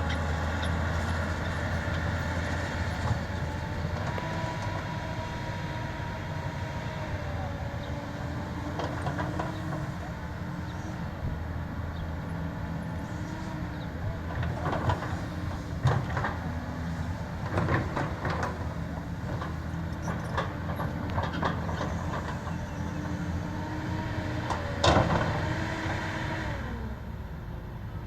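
Caterpillar 320D RR excavator working soil: its diesel engine runs steadily while a hydraulic whine rises and falls with the movements of the boom and bucket. Several sharp knocks and clanks from the bucket and linkage come in the second half, the loudest near the end.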